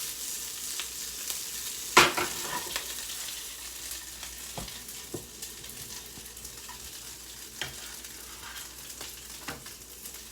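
Shrimp and chicken sizzling in a hot pan, a steady frying hiss. A loud sharp knock comes about two seconds in, and a few lighter clicks follow.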